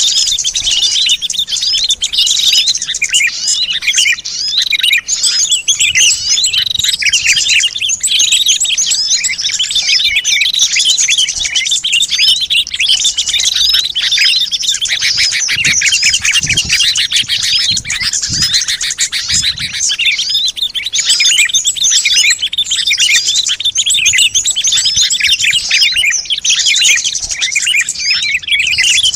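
Dense, continuous chorus of many small birds chirping and twittering over one another, a busy high tangle of short calls with no pauses. This is a bird-luring (pikat) recording, played to draw small wild birds in.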